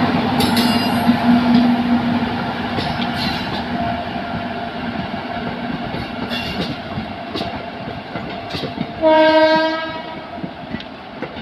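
Passenger train hauled by a WAG-9 electric locomotive running past, with a steady rumble and clicks of wheels over rail joints. Its horn gives one short blast about nine seconds in.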